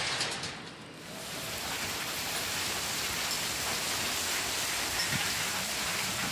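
Heavy rain pouring down in a steady hiss on the ground, swelling about a second in and then holding even.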